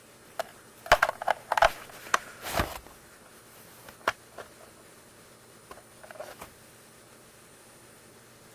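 Hard plastic parts of an oral irrigator clicking and knocking as they are handled: a quick run of sharp clicks with a short rustle in the first three seconds, a single click about four seconds in, and a few faint ones near six seconds.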